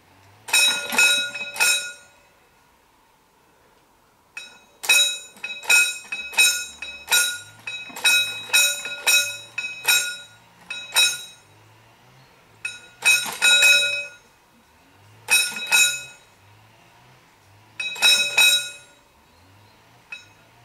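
Warning bell of a mechanical railway level-crossing barrier ringing in irregular runs of quick strokes with short pauses between, warning road users that the barrier is about to move.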